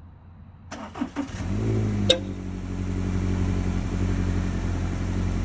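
Subaru Forester's boxer four-cylinder engine being started: the starter cranks briefly about a second in, the engine catches and settles into a steady idle, with one sharp click just after it catches.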